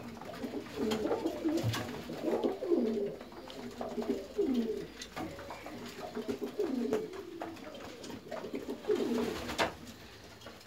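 Several domestic pigeons cooing in a loft, their low repeated calls overlapping without a break. A few sharp taps sound now and then, one of them louder near the end.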